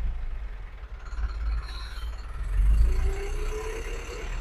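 Tata Ultra 1518 truck's diesel engine running at high revs on its own, with a pitch that rises about three seconds in as the rpm climbs. The racing comes from a crankshaft position sensor giving the engine no signal (fault code P0335), traced to a damaged sensor wire.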